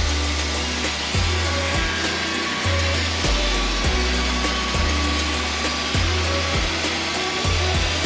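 Wood-Mizer LT40 band sawmill running through a Douglas fir log, a steady rushing saw-and-engine noise with sawdust blowing out of the chute, under background music with a low, stepping bass line.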